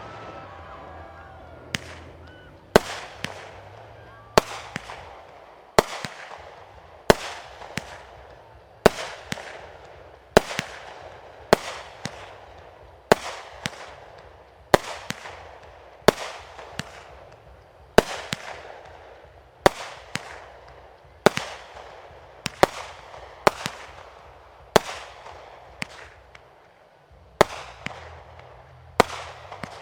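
Fireworks going off one after another, a sharp bang about every second and a half, each followed by a fading rumbling echo.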